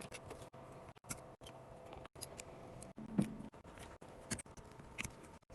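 Scattered light clicks and taps, roughly one a second, from small repair tools working on a Samsung phone during a cracked-screen replacement.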